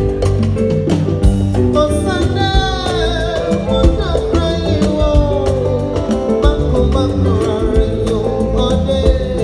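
Live band playing an upbeat groove on drum kit, bass guitar and a tall hand drum, with a steady beat and held bass notes. A man's singing voice comes in about two seconds in, with sliding phrases.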